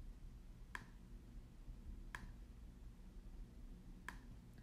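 Three faint, sharp clicks about one to two seconds apart, made by clicking through folders in a computer's file-open dialog, over a low steady room hum.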